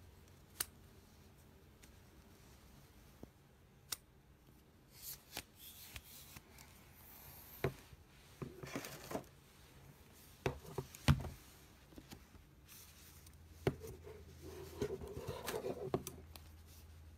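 Handling noise from a selfie stick and its cloth pouch and papers: scattered sharp clicks and knocks, the loudest about two-thirds of the way through, with bouts of rustling in between, over a faint low hum.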